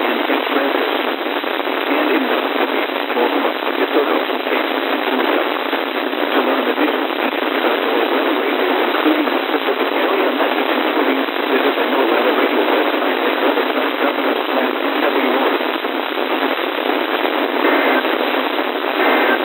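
Steady, loud hiss of radio static from a weather radio receiver on a weak NOAA Weather Radio signal, thin-sounding and cut to a narrow band. A faint voice from the broadcast barely breaks through the noise near the end.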